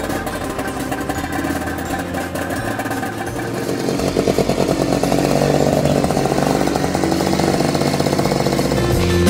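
Small vintage snowmobile engine running with a rapid, even exhaust pulse, getting louder about four seconds in.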